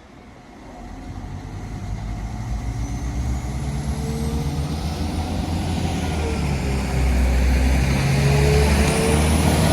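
Diesel train approaching and drawing closer, its engine note growing steadily louder over several seconds, with a high whine above it.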